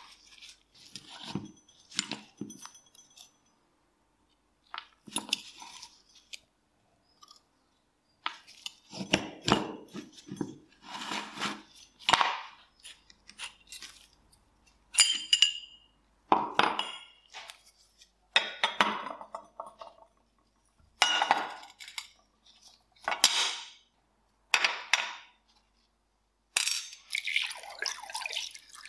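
Small steel parts of an old nail gun clinking, scraping and clanking as they are handled and taken apart, in short separate bursts with silent gaps. Near the end, rust-remover liquid starts pouring into a glass dish of the parts.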